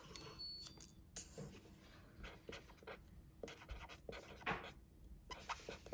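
Marker pen writing on small paper heart stickers: faint, irregular scratching strokes and light taps of the tip, one stroke louder about four and a half seconds in.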